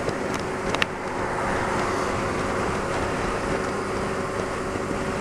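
Wind rushing over the microphone at road speed on a motorcycle, with the steady drone of the Honda Varadero 125's small V-twin engine underneath. Two brief clicks under a second in.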